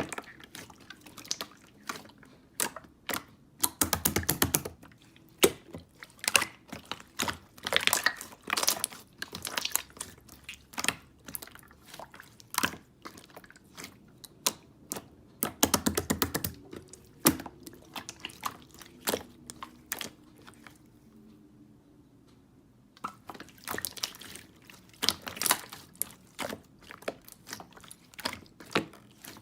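Close-up run of small sharp clicks, crackles and crunches coming in uneven clusters, with a brief lull about three-quarters of the way through.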